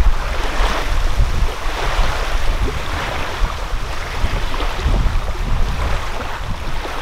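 Wind buffeting the microphone with a low rumble, over a steady wash of small waves on the shore.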